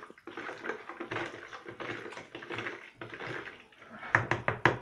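A spoon stirring sugar, salt and yeast into water in a plastic bowl to dissolve them: irregular scraping and clicking, turning about four seconds in into quick, regular knocks, about five a second, of the spoon against the bowl's side.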